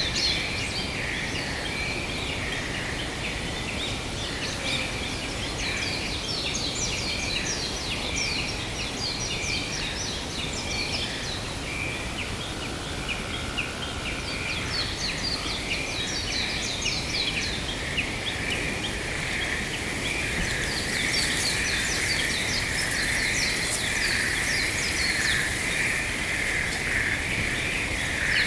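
Forest ambience: a steady, pulsing high chorus of calls, with many quick chirps above it and wind noise underneath; the chorus grows louder about two thirds of the way through.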